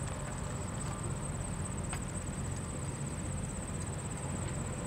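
Insects trilling steadily at a high pitch, a fast, even pulsing, over a steady low rumble.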